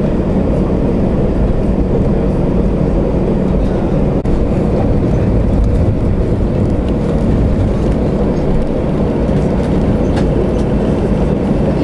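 Jet airliner's engines at take-off power with the rumble of the wheels on the runway, heard inside the cabin during the take-off roll: a loud, steady, deep noise.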